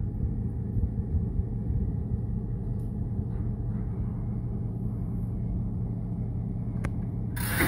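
Diesel locomotive engine running during switching moves, a steady low rumble. A louder rushing noise starts suddenly near the end.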